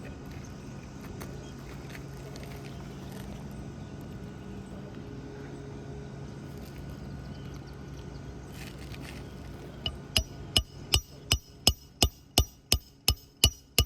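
Hammer striking a roofer's snake tool to drive a roofing nail through a shingle: quick, even metal-on-metal blows, about three a second, each with a high ring. The blows start about ten seconds in, after a stretch of faint steady background hum.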